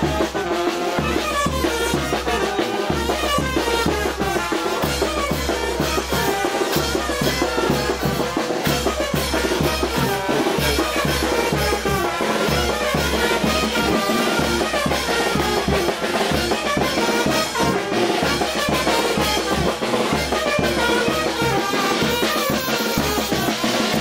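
Brass band with trumpets, bass drum and cymbals playing a brinco del chinelo dance tune over a steady drum beat.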